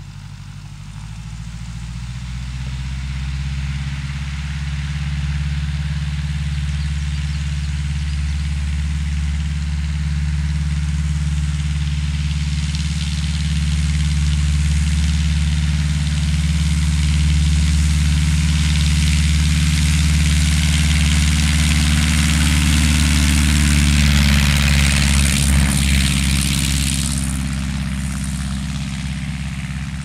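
Aeronca L3's 65 hp Continental four-cylinder engine and propeller at takeoff power on a grass-strip takeoff run. It swells as the plane rolls toward the listener, is loudest as it passes close about 25 seconds in with a brief drop in pitch, then eases off as it climbs away.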